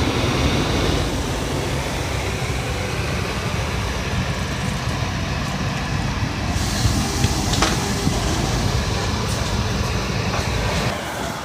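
Steady vehicle travel noise: a low rumble with hiss, the hiss growing louder a little past halfway, with one sharp click, and the noise dropping off near the end.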